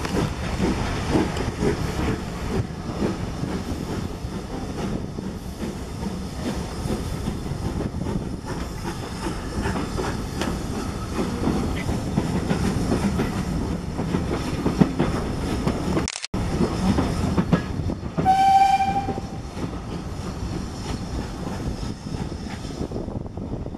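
BR Standard Class 4 2-6-4T tank engine working its train away, heard from a carriage window: rhythmic exhaust beats over the rumble and clatter of the carriage wheels on the rails. About three-quarters of the way through comes one short, clear steam-whistle blast lasting about a second.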